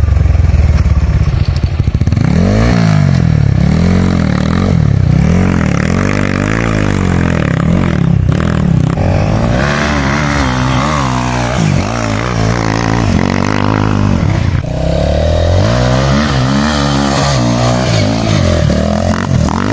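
Dirt bike engines revving hard in repeated surges, pitch climbing and dropping about once a second, as the bikes claw their way up a steep dirt climb. More than one engine is heard at once.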